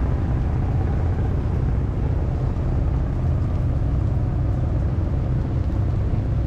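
An engine running steadily: a low rumble with a pitched hum over it.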